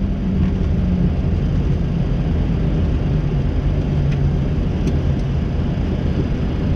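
Flight-deck noise of a Boeing 737 rolling out on the runway after touchdown: a steady, loud rumble from the wheels and engines with airflow noise over the cockpit.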